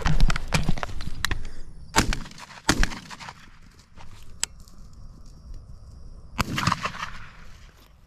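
Two shotgun shots about three-quarters of a second apart, around two seconds in, fired hurriedly at a passing dove, among smaller knocks and clicks.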